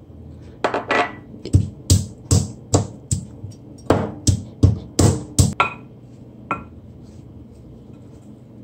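A pestle pounding whole pimento (allspice) seeds in a mortar: about a dozen sharp strikes, two or three a second, stopping about two-thirds of the way through.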